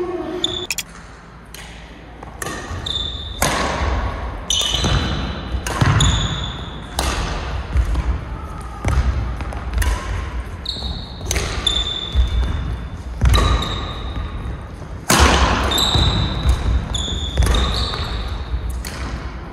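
Badminton rally: rackets striking the shuttlecock about once a second, with short high squeaks of court shoes on the floor and footfalls between the hits.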